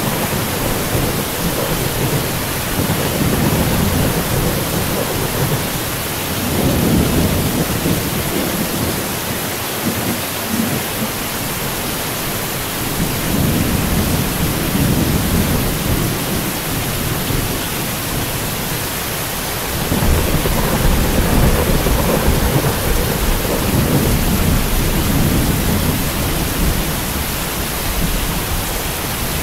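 Heavy rain falling steadily, with thunder rumbling in low, rolling swells several times; a louder rumble comes in about two-thirds of the way through.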